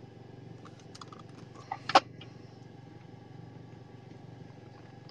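Low steady background hum with a few faint ticks, and one sharp click about two seconds in.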